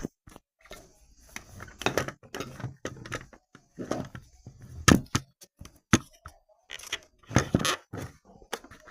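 Irregular clicks, knocks and rattles of an airsoft pistol and its silencer being handled, with louder knocks about five seconds in and again near the end.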